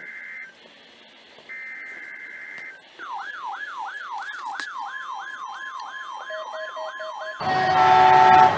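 Emergency Alert System broadcast tones: two short bursts of the digital header's two-tone data warble a second apart, then an electronic siren sweeping up over and over, about two to three times a second, with a steady tone and a pulsing lower tone joining it. Near the end a loud chord of steady tones cuts in.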